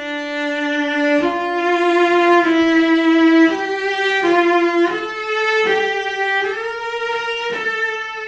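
Solo cello played with the bow: a slow melody of sustained notes in the instrument's upper-middle register. It climbs to a longer held high note about seven seconds in, then steps back down.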